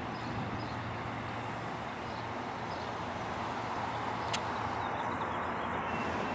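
Union Pacific diesel freight locomotives approaching with an intermodal stack train: a steady rumble that grows slowly louder, with one brief click about four seconds in.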